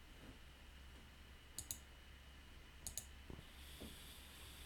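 Computer mouse clicking twice, about a second and a quarter apart, each click a quick double tick, over a faint low hum.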